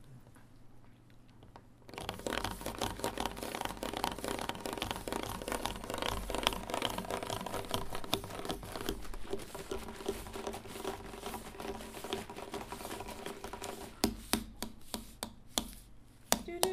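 Home-made foley for a chugging cartoon steamboat: a dense run of scratchy, crackling noise packed with rapid clicks, starting about two seconds in. It thins to sparse single clicks for the last couple of seconds.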